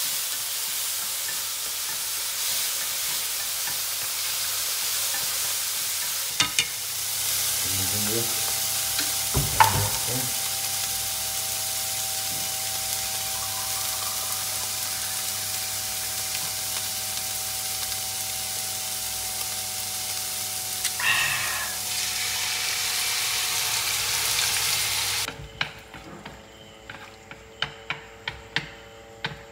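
Clams sizzling as they fry in a stainless-steel pan while wooden chopsticks stir them. The sizzle cuts off suddenly near the end, leaving light clicks of the chopsticks against the pan.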